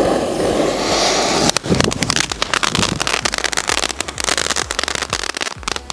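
Ground fountain firework ('Angry Bird Red') going off: a steady hiss as it catches, then from about a second and a half in a rapid crackling of many small pops as it sprays sparks.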